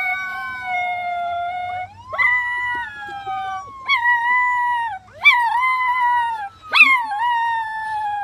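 Schnauzer howling again and again at a police siren played from a cell phone: about five howls, each starting sharply and sliding down in pitch, over the siren's fainter slow rising and falling wail.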